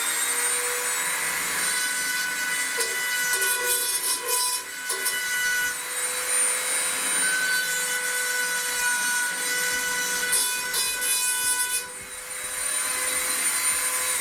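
Dremel rotary tool running at a steady high whine, grinding paint off a metal plate in rasping spells, with a short let-up near the end.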